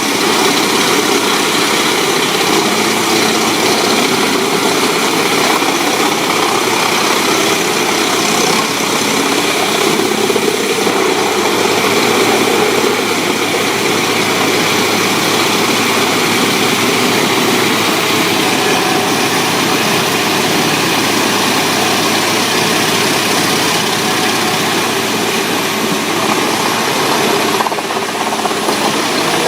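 Engine of a large wood-chipping machine running steadily.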